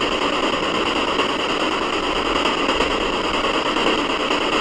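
Radio static from a ghost-hunting spirit box scanning through stations, played through a small external speaker: a steady, loud, choppy hiss.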